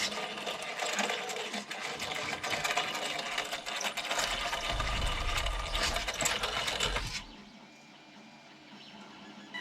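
A parcel being unpacked by hand: packaging rustling and crackling as it is torn and pulled open, with a few dull knocks, stopping abruptly about seven seconds in. A quieter steady mechanical hum from a 3D printer runs underneath.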